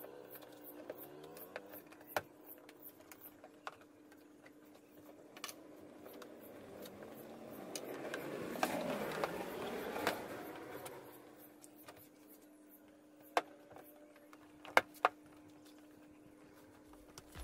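Scattered sharp clicks and taps as fingers and a plastic trim tool press a rubber door-window weatherstrip onto the sill of a car door, over a steady low hum. In the middle a broader swell of noise builds and fades over a few seconds.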